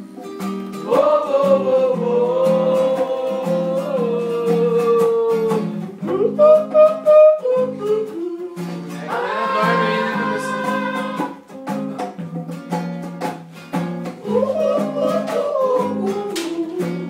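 Acoustic guitar strummed in a steady rhythm while a voice sings along, holding long, sliding notes.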